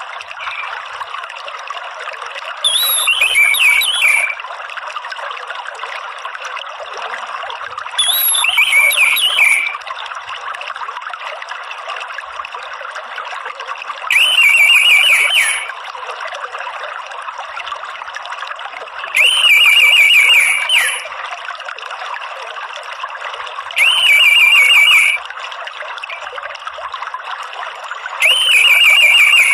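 Orange-headed thrush giving short, rapid trilling phrases, the 'ngeriwik' call, six times about every five seconds, over a steady trickle of running water.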